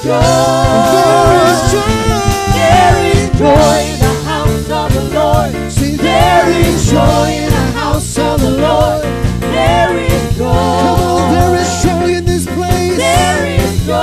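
Live church worship music: several singers with microphones singing together over a band with bass guitar and drums.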